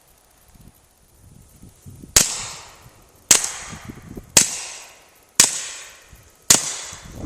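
Five suppressed 9mm pistol shots about a second apart, each a sharp crack with a short fading tail, heard from about 40 feet in front of the muzzle. The shots come from a Beretta with a DeGroat suppressor packed with white lithium grease (shot wet), firing 147-grain Winchester subsonic rounds, and all five go off with no misfire.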